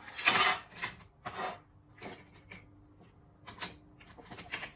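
Short, irregular scraping and rubbing noises from outboard carburetor parts being handled and put into a soak of carburetor cleaner. The loudest scrape comes just after the start, with several shorter ones after it.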